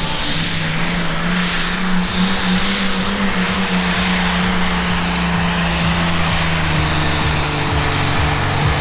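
Ford Pro Stock pulling tractor's diesel engine running at high revs under full load as it drags the weight sled, a loud steady drone whose pitch climbs slightly over the first couple of seconds and then holds.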